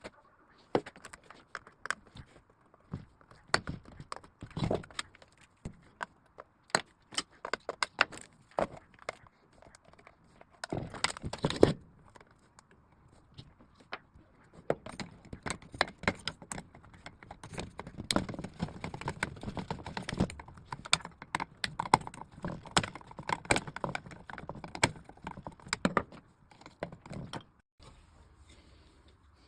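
Irregular metallic clicks, knocks and rattles of tools and parts being handled during bench repair work on a solar inverter, with a longer stretch of scraping and rattling in the second half.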